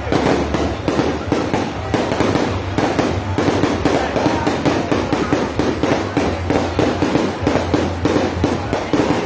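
Fireworks going off in a rapid, unbroken barrage of bangs and crackles, several a second.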